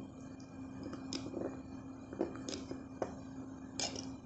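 A spoon stirring a thick, sticky honey-and-turmeric paste in a bowl: soft squelching with a few scattered clicks of the spoon against the bowl, the loudest near the end.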